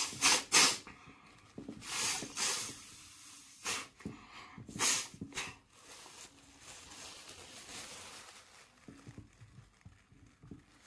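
A pug having its face wiped with a tissue: short breathy snorts and tissue rustling, six or so quick bursts over the first five seconds, then quieter.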